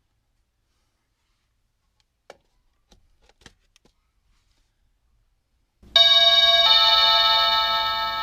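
A few faint clicks, then a doorbell chime rings a two-note ding-dong, the second note lower, each note ringing on and slowly fading.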